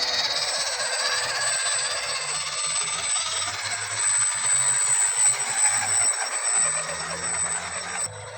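Scale RC off-road crawler's electric motor and gear drivetrain running, with a thin steady high whine over the whirr; it cuts off abruptly near the end.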